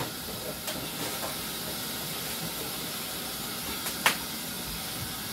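Steady hiss in the kitchen, with one sharp knock about four seconds in.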